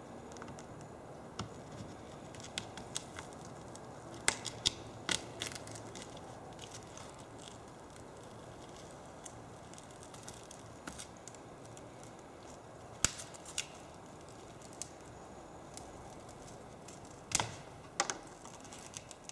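Scattered clicks, ticks and crackles of a cracked iPad 2 digitizer glass being pried up and peeled off its aluminum frame with a plastic tool, the warmed adhesive letting go. The sharpest snaps come in a cluster about four to five seconds in, once near thirteen seconds and twice near the end, over a steady low hiss.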